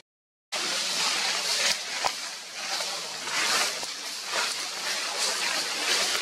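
About half a second of silence, then a steady, fluctuating outdoor hiss with a few faint clicks.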